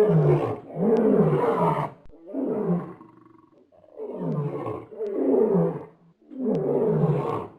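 Lion roaring: a run of deep grunting roars, about six in a row, each under a second or so with short pauses between.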